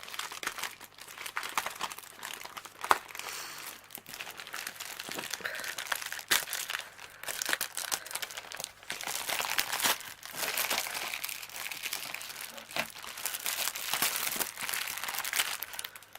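Plastic packaging crinkling and rustling as it is handled, in irregular crackles, with one sharp snap about three seconds in.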